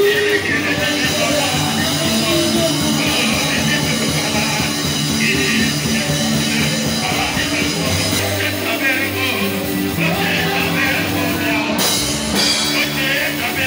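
Live church worship music, amplified: singers singing into microphones over instrumental backing.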